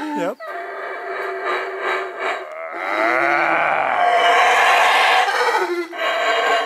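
Yucatán black howler monkey calling: loud, rough howls that swell into a long sustained stretch in the middle.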